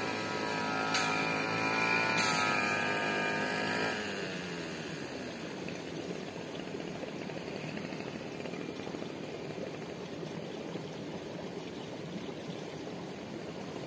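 A small engine's steady hum drops in pitch and fades out about four seconds in. After that, water trickles steadily in a shallow irrigation ditch.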